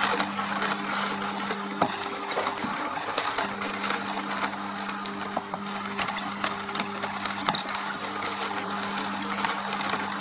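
Horizontal masticating juice extractor running with a steady motor hum while its auger crushes celery stalks, with constant crunching and frequent sharp snapping crackles.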